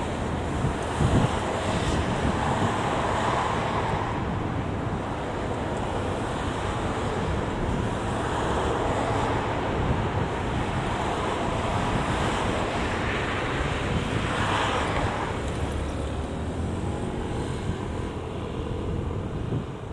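Wind buffeting the microphone over steady road-traffic noise, a continuous rushing roar with no siren or voices standing out.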